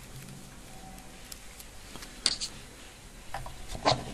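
Light clicks and taps of test-lead plugs being handled over a quiet room background, with two sharper clicks about two seconds in and near the end.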